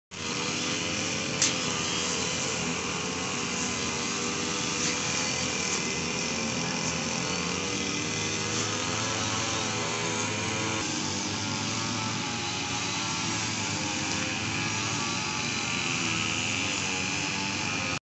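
An engine running steadily, its pitch drifting slowly up and down, over a constant rushing noise, with one sharp click about a second and a half in.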